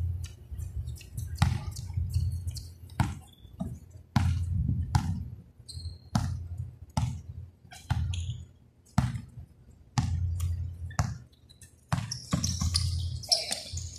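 Basketball being dribbled on a hard court: a run of irregular bounces, roughly one a second.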